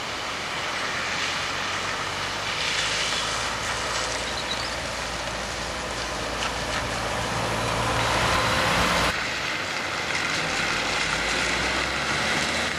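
Road vehicles driving slowly through shallow floodwater on a lane: a Ford Transit van, then a small Fiat car. Their engines run, and their tyres swish and hiss through the standing water. The sound swells twice and changes abruptly about nine seconds in.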